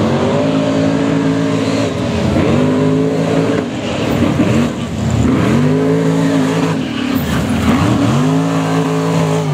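Mega truck's engine revving hard in repeated surges: its pitch climbs, holds briefly and falls back about four times.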